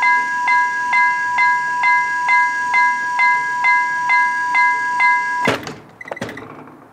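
Railway level-crossing warning bell ringing in a steady two-tone strike, a little over two strikes a second, while the barrier lowers. It cuts off suddenly with a loud clunk as the barrier arm comes down to rest, then a few light clicks.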